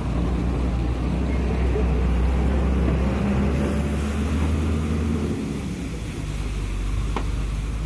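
Low, steady hum of an idling engine close by, its pitch dropping about five seconds in and then holding steady. One sharp tap comes near the end.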